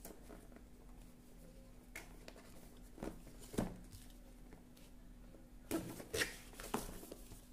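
Cardboard product box being handled and opened: scattered soft taps and scrapes, then a short run of scraping and rubbing about six seconds in as the lid is worked open.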